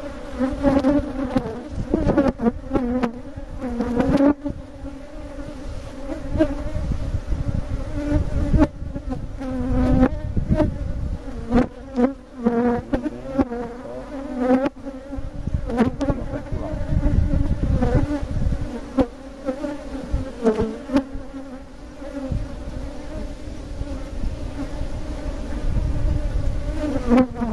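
A swarm of honeybees buzzing around an opened hive, a steady hum with a few sharp knocks mixed in.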